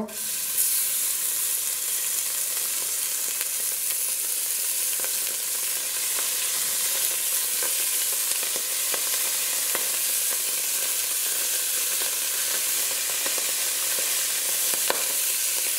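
Chunks of raw beef sizzling steadily in hot fat in a stainless steel pot as they are laid in by hand, searing for goulash. The sizzle starts as the first pieces go in, with a few faint taps along the way.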